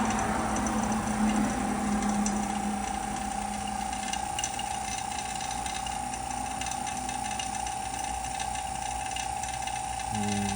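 Oil-sealed vacuum pumps running: one keeps up a steady mechanical whine, while the low hum of a second pump that has just been switched off dies away about four seconds in. A brief low hum returns near the end.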